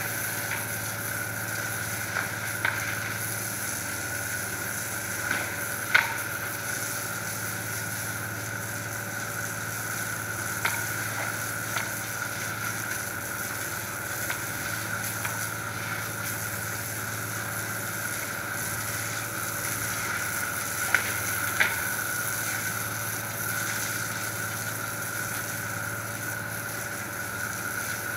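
Water spraying from a garden hose onto wet paving, a steady hiss, over a steady low hum. A few sharp knocks stand out, about six seconds in and twice more past the twenty-second mark.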